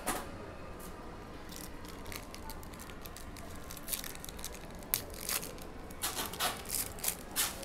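Trading card pack wrapper being crinkled and torn open and cards handled: a run of short rustles and snaps starting about four seconds in.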